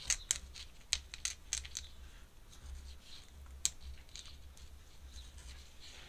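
Ink brush dabbing and scratching across paper: a quick run of sharp taps in the first second and a half, another about three and a half seconds in, with a faint scratchy rustle between, over a low steady hum.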